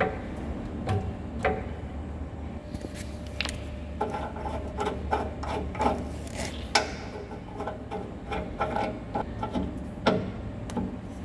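Metal parts and hand tools being worked: irregular clicks and knocks, some with a short metallic ring. There is a quick run of clicks in the middle and a louder knock near the end.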